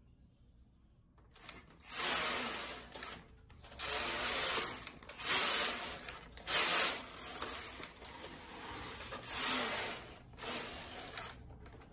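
Domestic knitting machine carriage being pushed back and forth along the metal needle bed, knitting rows: a run of rasping, sliding sweeps, each under a second, starting about a second in.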